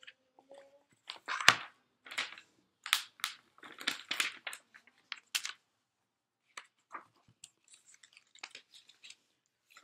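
Paper and card being handled: a stiff card and picture-book pages rustling and crinkling in a string of irregular short rustles, busiest and loudest in the first half, lighter near the end.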